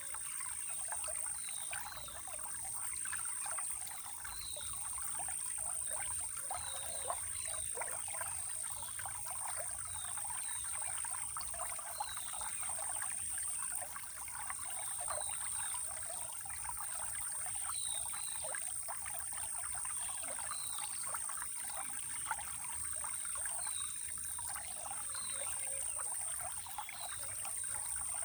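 Running water trickling steadily, with a continuous high-pitched insect trill and short high bird chirps every second or two.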